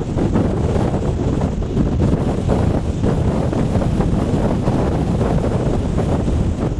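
Blizzard wind buffeting the microphone: loud, steady wind noise that rumbles low, with small gusty swells.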